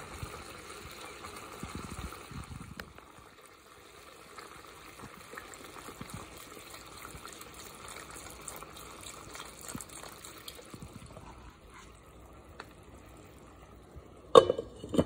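Liquid poured in a thin stream into a pan of simmering beef and mushrooms in sauce, splashing and bubbling. Near the end a glass lid clanks down onto the pan with two sharp knocks.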